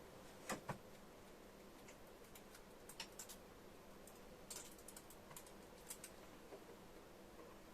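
Scattered faint clicks and taps: two sharp clicks about half a second in, then a loose run of lighter ticks a few seconds later, over a quiet steady hum.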